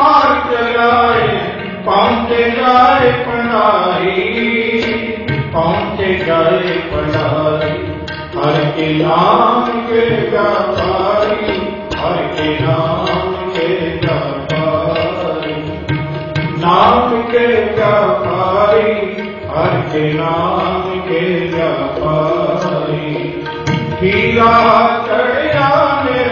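Sikh devotional Naam Simran music: a melodic chant in rising and falling phrases over instrumental accompaniment.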